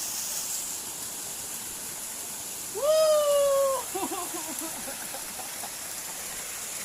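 Steady rush of water flowing in a small ditch. About three seconds in, a loud drawn-out call lasting about a second, slightly falling in pitch, then a few short broken calls.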